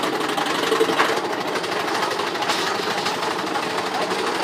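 Mine-train roller coaster cars rattling along the track in a rapid, steady mechanical clatter, with a few louder knocks about a second in and near three seconds.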